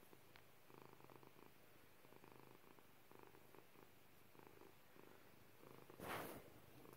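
Domestic cat purring softly and steadily, the purr pulsing with each breath. A brief rustle about six seconds in.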